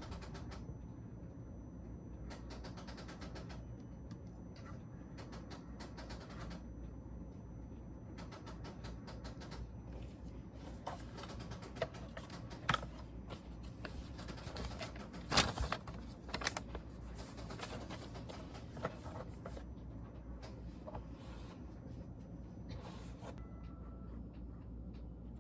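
Typing on a Logitech K380 Bluetooth keyboard: bursts of quick key clicks with short pauses between them, and a few louder key knocks around the middle, over a low steady hum.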